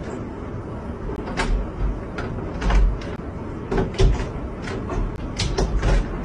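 Wooden cabinet door and its round knob rattling and knocking irregularly, about a dozen times, as a cat paws and tugs at the knob trying to open the door.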